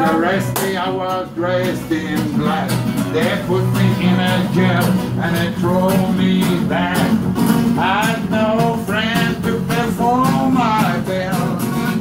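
Acoustic guitar strummed with a man singing along, a live song.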